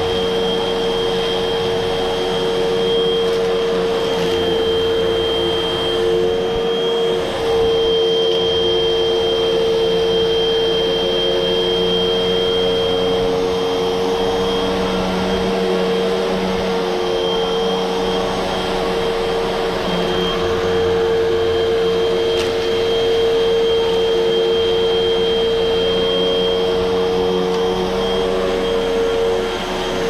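Hoover upright vacuum cleaner running steadily as it is pushed over carpet: a constant motor hum with a thin high whistle above it.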